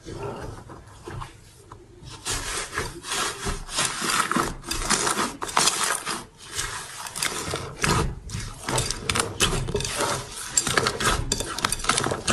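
Slime being played with and squished, making dense crackling and popping clicks. It is quieter for about the first two seconds, then louder.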